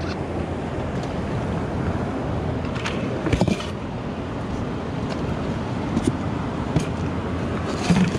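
Steady wind and surf noise, with a few short knocks and clatters, the loudest cluster about three seconds in, as a water bottle is set into a plastic cooler.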